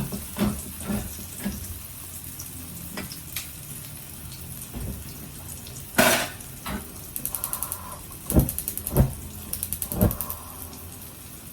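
A tin of sardines without a pull tab being opened by hand. Metal clicks and knocks, one loud sharp hit about halfway, then short runs of rapid even ticking and a few heavy thuds.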